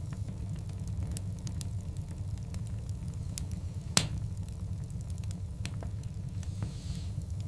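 Wood fire burning in a fireplace: a steady low rumble of the flames under scattered small crackles, with one sharp, louder pop about four seconds in and a brief soft hiss near the end.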